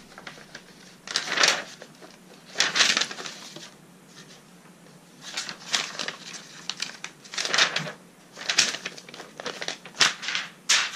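Sheets of paper being handled, folded and shuffled, rustling and crinkling in a series of short, irregular bursts.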